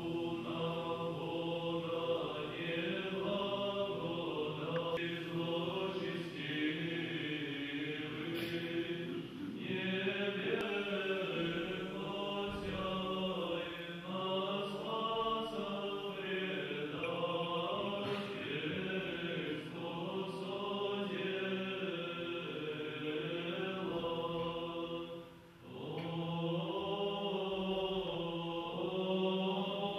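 Orthodox liturgical chant sung by a church choir, slow sustained voices in several parts, with one short break between phrases about 25 seconds in.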